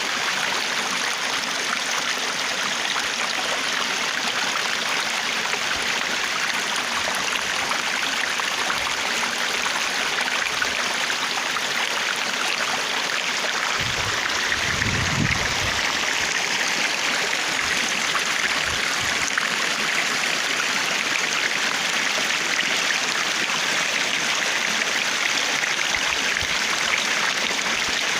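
Stream water flowing and splashing steadily, with a brief low rumble about halfway through.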